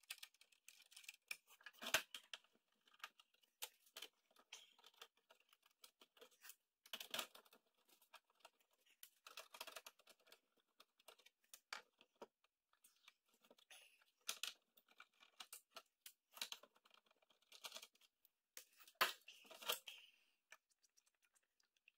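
Faint, scattered clicks and scrapes of a screwdriver and small metal parts as a motherboard is unscrewed and worked free from a PC tower's sheet-steel chassis. The sharpest clicks come about two seconds in and again near the end.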